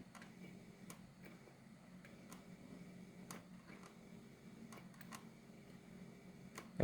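Faint steady electrical buzz from a fluorescent lamp run straight off a microwave transformer with no ballast or starter, with scattered light ticks about once or twice a second. The owner wonders whether a blown filament inside the lamp is making the buzz.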